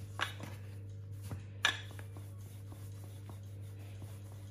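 Wooden rolling pin rolling out pastry dough on a worktop: soft rolling with a few light knocks, the loudest about a second and a half in, over a steady low hum.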